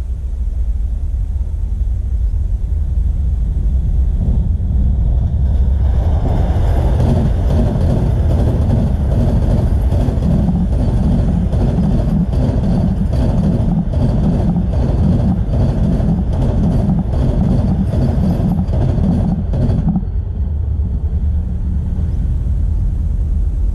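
Vande Bharat Express, an electric multiple-unit train, passing close by at speed. Its wheels clatter over the rail joints in a dense run of clicks over a loud rumble from about five seconds in, and the clatter cuts off sharply about four seconds before the end. A low rumble runs beneath it before and after the pass.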